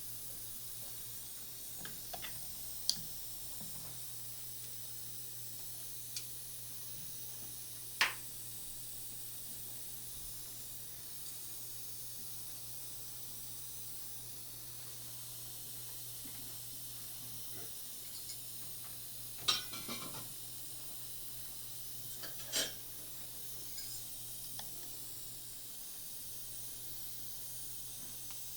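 Steady faint hiss with a low hum, broken by a few sharp metallic clicks and clinks of surgical instruments, such as a needle holder and scissors, during suturing with 5-0 nylon.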